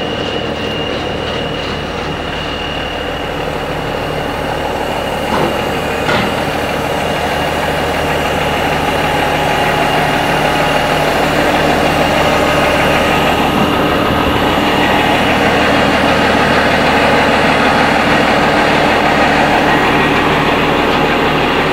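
Heavy diesel truck engine running steadily, growing gradually louder, with two light clicks about five and six seconds in.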